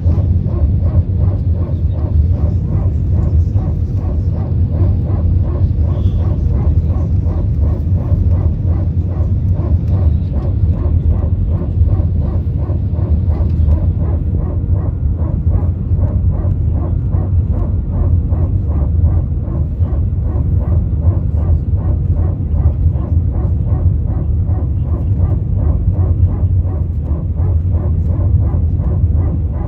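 Airbus A320-200 cabin noise from a window seat: a loud, steady low rumble of the engines and airflow, unchanging in level.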